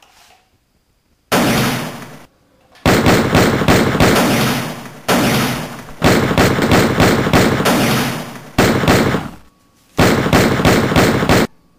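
Bursts of rapid machine-gun fire, most likely sound effects laid over a toy-gun fight. There are about six bursts, each a second or two long, separated by short gaps, starting about a second in.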